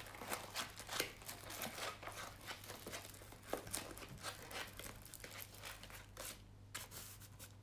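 Crinkling and rustling of a diamond-painting canvas and its covering sheet being handled and rolled up: many short crackles, thinning out after about six seconds.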